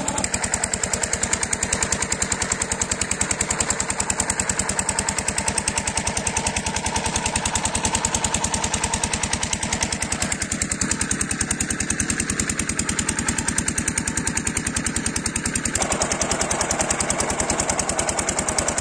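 Rajkot-type 8 hp single-cylinder diesel engine of an irrigation pumping set running steadily under load as it pumps water, a fast, even beat of firing strokes.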